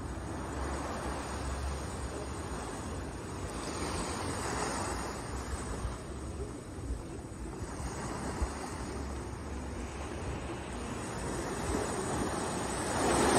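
Small waves washing onto a sandy beach, surging and fading every few seconds, with a low wind rumble on the microphone.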